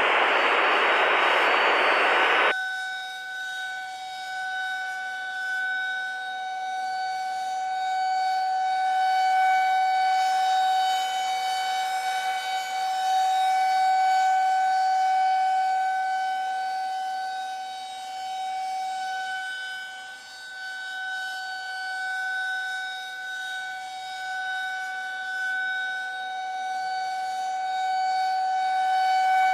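Air-raid (civil defense) siren sounding a steady tone that holds its pitch while swelling and fading in loudness. A loud rushing noise covers it at first and cuts off suddenly about two and a half seconds in.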